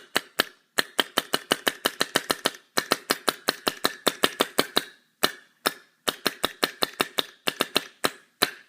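Closed-bolt Ion paintball marker's solenoid and bolt cycling rapidly, a fast run of sharp clicks at about eight a second with a few short pauses. With the breech eyes blocked as if a ball were loaded, the marker fires at its full rate.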